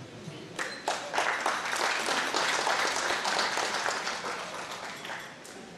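Audience applauding. It starts about half a second in, is strongest in the middle and fades out near the end.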